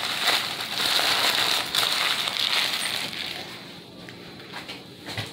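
Crinkling and rustling of paper fast-food wrappers as they are gathered up by hand: a crackly rustle that eases off near the end.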